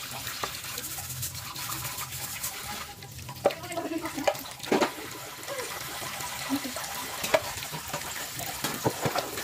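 Tap water running into a sink while dishes are washed by hand, with several sharp clinks of dishware knocking together.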